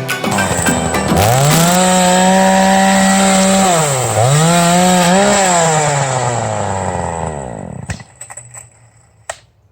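Chainsaw engine revving up and running at high speed, dipping briefly and picking up again, then winding down and stopping. A few sharp clicks follow.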